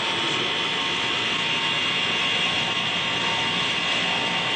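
A motor-generator set (a 3/4 horsepower induction motor driving a 2900 watt generator) running steadily, with a drill press running off its output. An even running noise with a few faint steady tones, unchanging in level.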